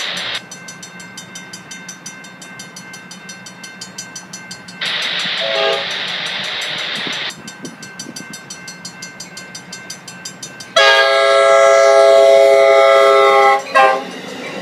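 Grade-crossing warning bell ringing in a steady repeating pattern. About eleven seconds in, the horn of the leading Amtrak Pacific Surfliner cab car sounds a loud multi-note blast for about three seconds, followed by a short blast, the train's horn signal for the crossing.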